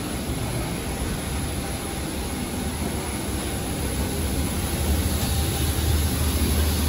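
Steady low hum and rumble of a parked airliner's running systems, heard from the jet bridge. It grows louder as the cabin door is reached.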